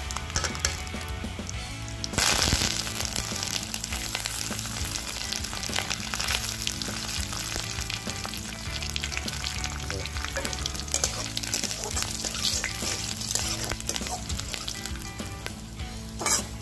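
Cumin seeds and dried red chillies sizzling in hot oil in a kadai. About two seconds in, curry leaves go into the oil and it flares into a loud spluttering sizzle, which settles into steady crackling frying. Near the end there is another loud sizzle as more goes into the pan.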